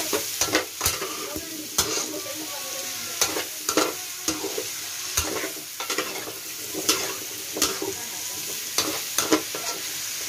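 Metal spoon scraping and knocking against a wok as cubed squash is stirred, with irregular sharp clacks over a steady sizzle of the vegetables sautéing.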